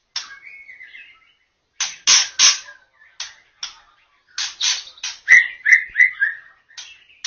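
White-rumped shama singing: a string of short, harsh, scratchy notes, with a few clear whistled notes about five seconds in.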